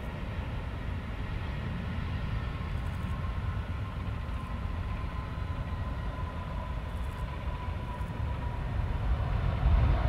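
Airbus A319-111 jet engines, CFM56s, running with a steady whine over a deep rumble as the airliner rolls along the runway after touchdown. The whine sinks slowly in pitch, and near the end the rumble swells louder.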